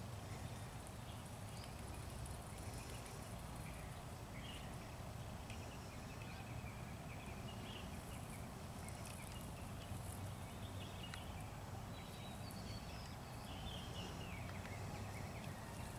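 Quiet outdoor ambience: a steady low rumble with faint, scattered bird chirps.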